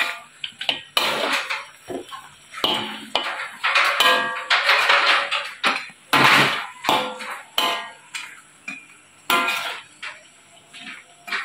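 Metal spatula scraping and knocking irregularly against a wok while food is stirred in it, the wok ringing briefly after some strikes.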